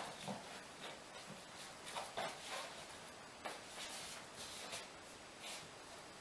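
Faint, scattered light taps and scuffs of footsteps on a laminate floor, from a small puppy's paws and a person's sandalled feet moving about.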